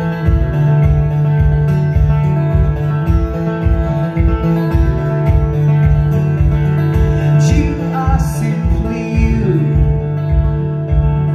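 Live acoustic guitar playing over a steady kick-drum beat worked by the guitarist's foot, an instrumental stretch of a one-man-band song.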